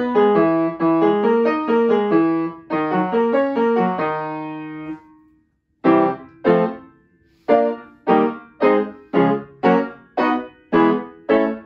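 Upright piano being played: a quick run of notes over held chords, ending on a chord that rings and dies away about five seconds in. After a short pause come separate struck chords, about two a second, each left to fade.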